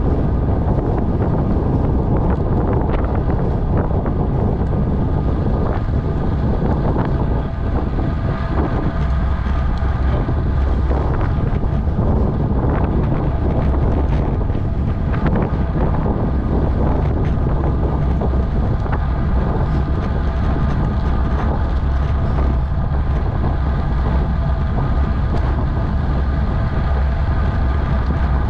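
Wind buffeting the microphone of a camera on a road bike descending at about 40 km/h, mixed with the rumble of the tyres on rough, patched asphalt and frequent small knocks from bumps in the road.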